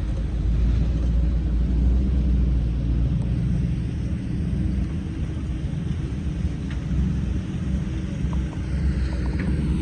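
Loaded coke train's freight cars rolling past at close range: a steady low rumble with a few faint clicks from the wheels.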